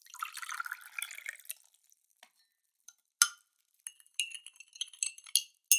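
Liquid pouring for about a second and a half, then a run of bright glassy clinks, each ringing briefly; the loudest clink comes about three seconds in.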